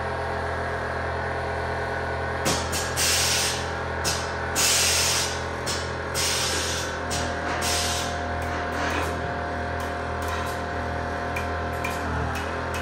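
Air-ride suspension hissing in a run of short air bursts from about two and a half to nine seconds in, as air is let into or out of the front air bags to set ride height.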